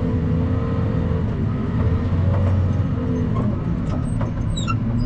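Dump truck's engine running steadily under way, heard from inside the cab as a low, even drone.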